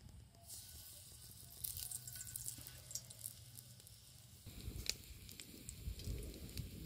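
Hot oil sizzling and crackling in a shallow metal pan as small pieces of food are laid into it one at a time, with a sharp tick about five seconds in.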